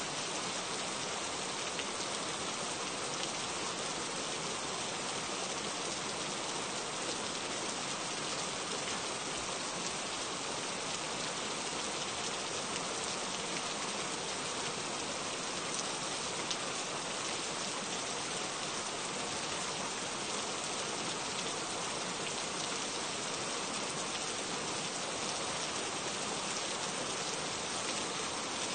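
Steady rain falling, an even hiss of drops with a fine patter that stays unchanged throughout.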